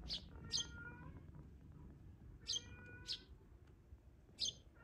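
Sparrows chirping: short, sharp cheeps in three pairs, each pair about half a second apart, over faint background hiss.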